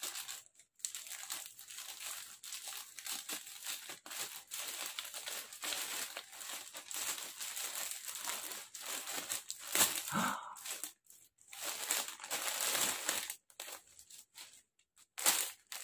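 Plastic packaging crinkling and rustling as it is handled and torn open, in irregular bursts with short pauses near the end.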